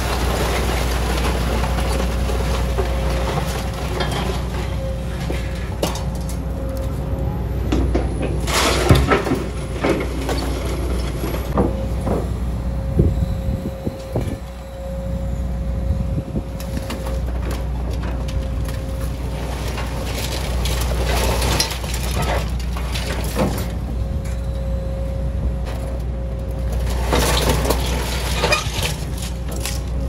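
Tracked excavator with a scrap grapple running, its diesel engine under a steady whine, as the grapple pulls wire and scrap metal off a trailer. Scrap clanks and scrapes, loudest about nine seconds in and again near the end.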